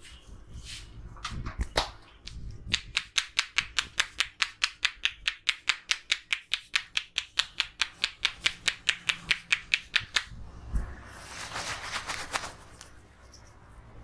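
Barber's hands tapping rapidly on a man's head in a head massage, a fast even run of sharp, loud claps, about five a second, lasting some seven seconds. After that comes a brief rustle of fingers working through the hair.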